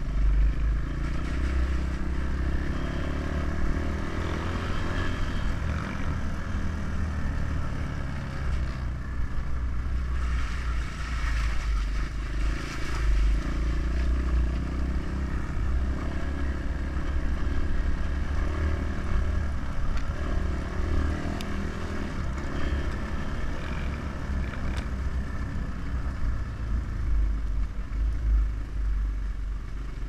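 Dirt bike engine running steadily as the bike is ridden along a rutted mud track, with a heavy low rumble and no big revs.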